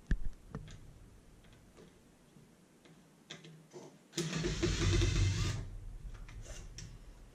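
Cordless drill-driver motor running for about a second and a half, backing out a screw from the electronics chassis. A sharp click comes just before, near the start.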